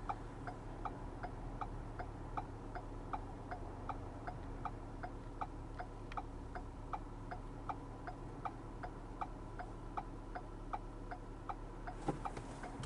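A car's turn-signal indicator ticking steadily, a little under three ticks a second.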